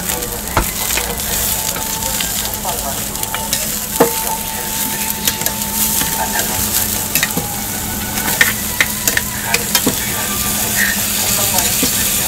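Egg, ham and a square patty frying on a flat-top griddle: a steady sizzle, with scattered clicks and taps of metal tongs against the griddle, more of them in the second half.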